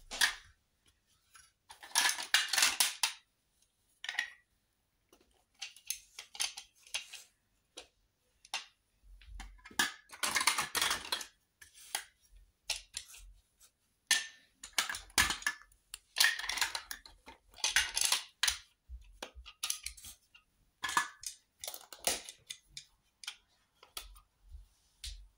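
Hard plastic marble run pieces clattering and clicking against each other as they are picked through and fitted together, in irregular bursts of rattling with short pauses between.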